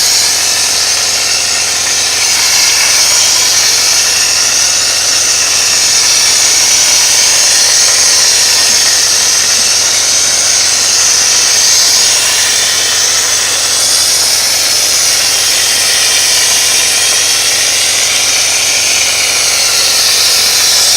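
Mortar pump spraying machine running, with the steady loud hiss of its air-fed spray nozzle spraying diatomaceous-earth plaster.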